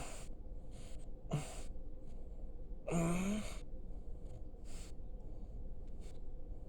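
Small dog making a strange noise: a series of short huffing breaths, with a brief voiced grumble that rises in pitch about three seconds in.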